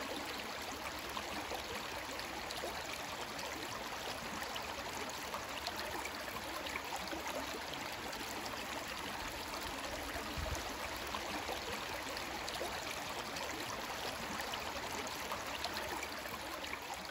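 Creek water flowing steadily, an even rushing sound with a brief low bump about ten seconds in.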